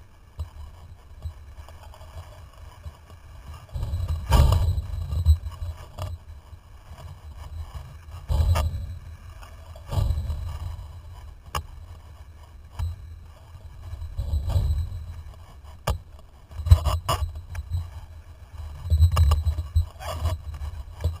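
Wind buffeting the microphone of a camera mounted on a sailing windsurf rig, a low rumble that comes in gusty surges every few seconds. Occasional sharp clicks and knocks sound from the rig.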